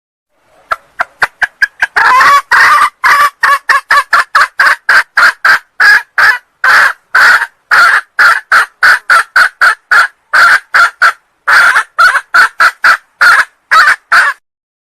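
Junglefowl hen calling: a long run of short clucking notes, starting quick and faint, then about three loud notes a second. It is the hen's call used as a lure to draw in junglefowl cocks.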